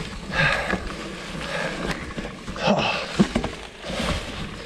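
A mountain biker breathing hard while pedalling up a steep climb: a few heavy, uneven breaths over the rustle of tyres rolling on dry fallen leaves.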